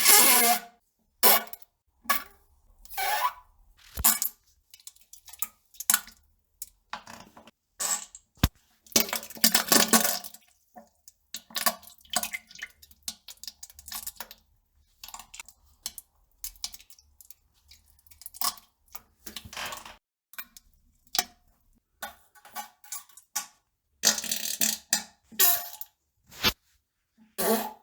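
A string of short fart sounds at uneven intervals, some with a low pitched buzz and some noisy and sputtering.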